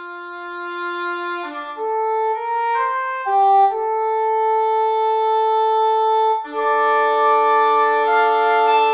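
Sampled orchestral woodwinds from the Spitfire Studio Woodwinds library: a single woodwind line plays a slow melody of held notes, growing louder, then more woodwinds join in a sustained chord about six and a half seconds in.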